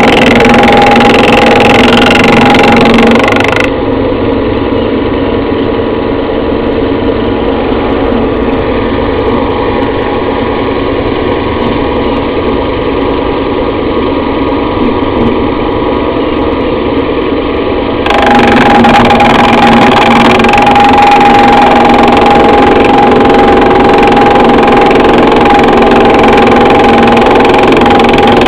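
Yager 11-inch thickness planer running, a loud steady machine hum with a strong whine. From about four seconds in to about eighteen it sounds duller and quieter, then the full whine returns.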